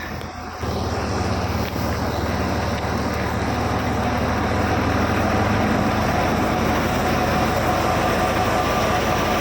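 Tractor-driven wheat thresher running steadily: tractor engine under load with the threshing drum's dense rushing noise, stepping up in loudness about half a second in.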